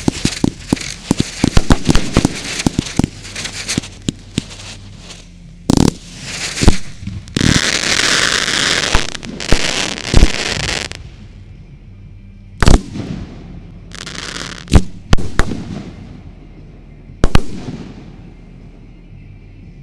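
Fireworks going off close by. A rapid string of crackling reports opens it, then come a few heavy bangs. Through the middle there is a long stretch of continuous hiss and crackle, and toward the end a handful of single sharp bangs about a second or two apart.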